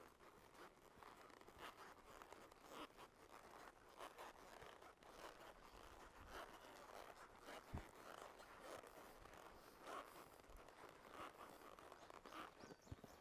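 Faint, irregular soft hoof steps and rustling of a horse walking along a dirt trail.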